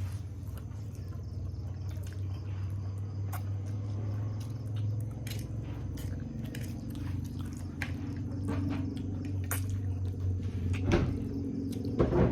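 A person eating noodles: scattered wet slurps, smacks and chewing clicks over a steady low hum.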